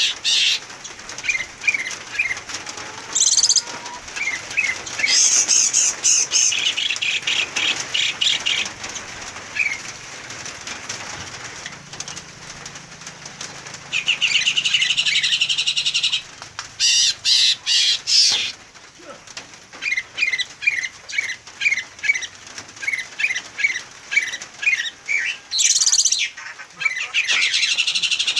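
Small caged songbirds calling: quick runs of short, falling chirps and several fast, dense trills, the loudest about halfway through, mixed with brief bursts of wing fluttering.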